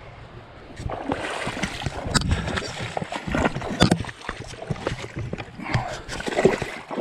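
A person's irregular footsteps and movement noise, scuffs and sharp knocks, starting about a second in.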